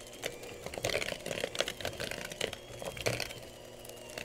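Electric hand mixer running on its lowest setting, its beaters creaming softened butter and sugar in a plastic bowl. Irregular clicks and scraping come through over a faint steady motor hum.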